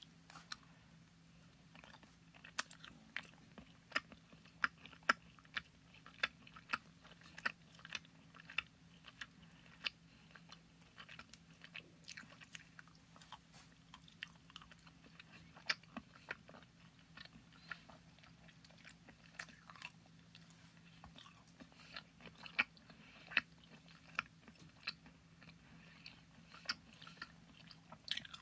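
Close-up chewing of a sticky orange Airheads taffy bar: irregular sharp wet mouth clicks and smacks throughout, busiest in the first third and again near the end. A faint steady low hum sits underneath.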